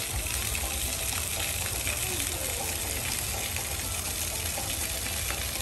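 Water pouring steadily from a giant tap-shaped fountain into its basin, with faint voices of people in the background.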